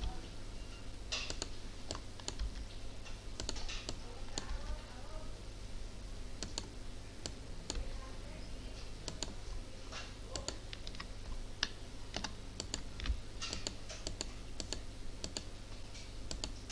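Computer keyboard keys and mouse buttons clicking in short, irregular taps over a low steady hum.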